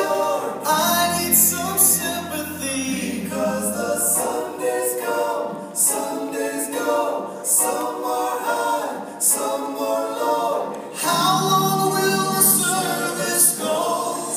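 A cappella group singing in several-part harmony, with deep held bass notes under the upper voices in the first few seconds and again near the end.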